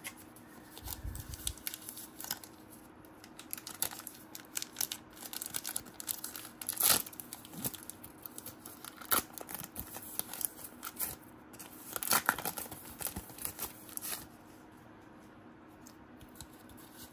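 Crinkling and tearing of a trading-card pack wrapper, with cards being handled: a run of irregular crackles and rustles, loudest about seven and twelve seconds in, dying down near the end.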